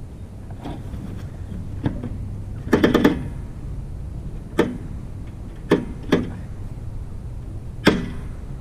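Scattered sharp knocks and clanks, with a quick rattle of several together about three seconds in, over a steady low rumble.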